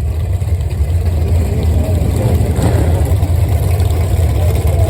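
A car engine running at a steady low idle, with a deep rumble and faint voices of people nearby.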